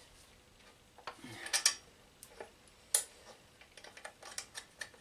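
Small metallic clicks and taps of hand work on a motorcycle's aluminium tail-light and number-plate bracket, with a sharp click about three seconds in and a quick run of light ticks near the end.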